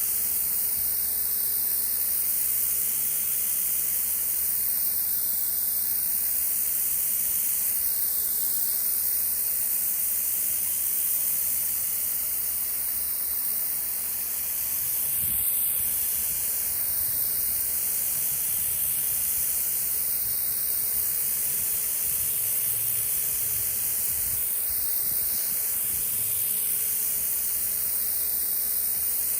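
Stihl RE90 electric pressure washer blasting concrete through a rotary nozzle: a steady hissing spray that shifts slightly in tone every three to four seconds.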